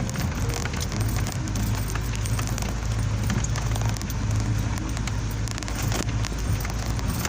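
Road vehicle driving, a steady low engine and road drone with frequent small rattles and clicks.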